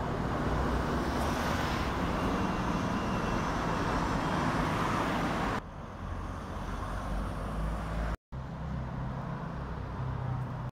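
Road traffic on a busy street: cars and a van driving past, a steady rush of tyre and engine noise. About five and a half seconds in it cuts off abruptly to a much quieter outdoor background with a low hum.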